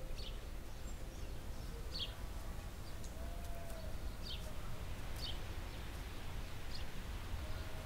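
Quiet rural outdoor ambience: a steady low rumble with short, high, falling bird chirps about five times, a second or two apart.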